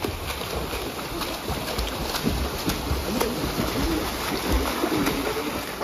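Pool water splashing and churning as a swimmer kicks and strokes front crawl through it.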